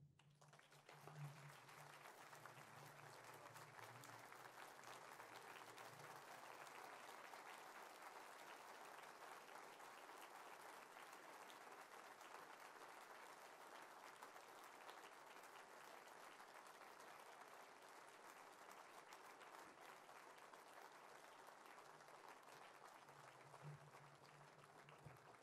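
Audience applauding, quiet and steady after swelling up in the first second.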